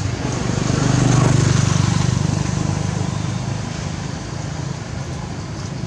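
A motor engine running with a steady, even pulse, loudest a second or two in and then slowly fading.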